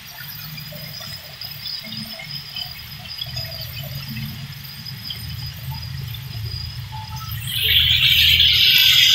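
A low steady rumble with faint scattered chirps, then about seven and a half seconds in a loud sizzling hiss starts and holds: food frying in hot oil.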